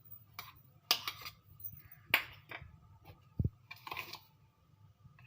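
A few sharp clinks and knocks of kitchen utensils against dishes while ingredients are added to the cooking pot, the loudest about one and two seconds in.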